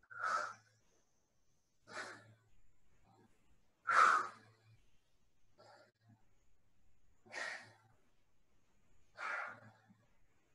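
A person breathing out hard in short, noisy puffs about every two seconds while doing push-ups.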